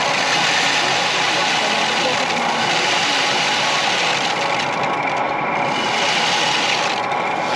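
Steady hubbub of many voices mixed with general hall noise in a crowded exhibition hall.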